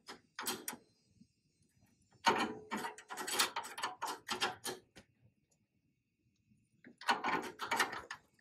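Hand tools and metal brake-line fittings being handled, clinking and rattling in three bursts with a short pause between the last two.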